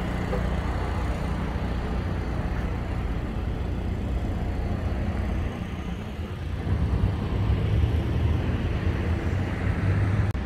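Road traffic noise: a steady low vehicle rumble that gets louder about two-thirds of the way in.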